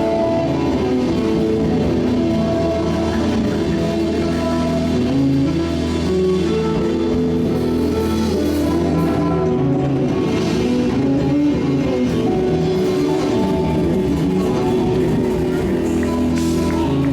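A band playing instrumental gospel music in a groove style: guitar over drums, with a steady low bass line and no singing.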